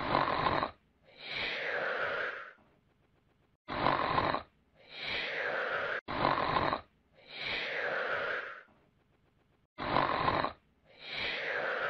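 Comic snoring sound effect: four snores about three seconds apart, each a short, rough, loud inhale followed by a longer, softer breathy exhale that falls in pitch.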